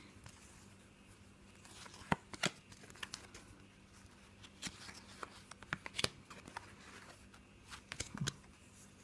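Stack of cardboard trading cards being handled and flicked through by hand: soft rustling with scattered light clicks as cards are slid off the pile one at a time.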